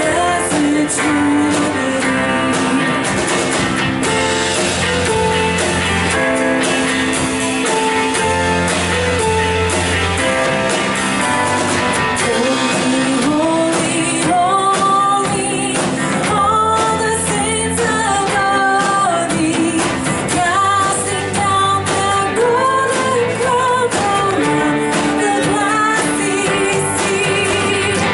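Church worship band playing a song with guitar, bass and singing; the sung melody comes forward about halfway through.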